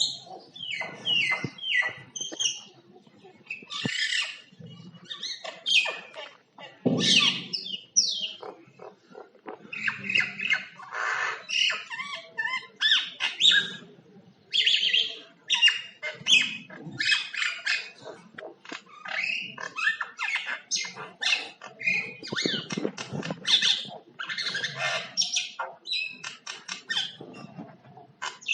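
Common myna calling and singing: a long, varied run of short whistles, chirps, clicks and harsh squawks with scarcely a pause.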